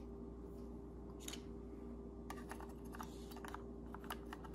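Faint small clicks and taps of a laptop SO-DIMM RAM stick being handled and fitted against its memory slot, one about a second in and a quick cluster in the second half, over a faint steady hum.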